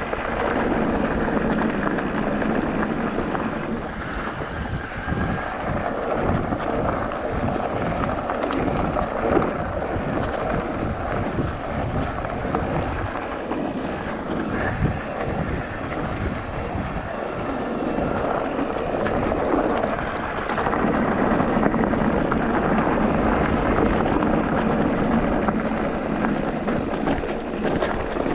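Off-road motorcycle engine running steadily while riding a bumpy dirt trail, with wind buffeting the microphone and frequent jolts from the rough ground. It gets a little fuller and louder about two-thirds of the way in.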